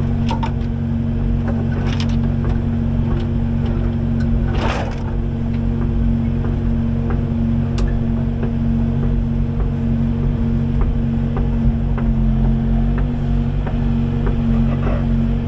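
Kubota 080 excavator's diesel engine running steadily, with scattered knocks and a brief rush of noise about five seconds in.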